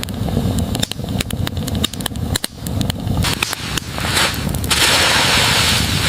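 Campfire wood crackling, with many irregular sharp pops and snaps over a low rumble; a louder steady hiss comes in about five seconds in.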